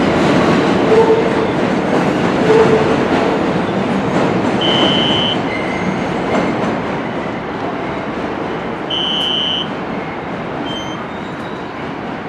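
NYC Subway 1 train running on the rails, its rumble fading steadily as it moves away. Two short, high wheel squeals come about five and nine seconds in.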